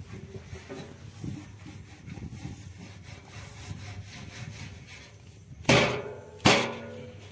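Scraping and rubbing of the metal parts of a solar inverter being shifted and pushed into place. Near the end come two loud, sharp knocks about a second apart, each ringing briefly.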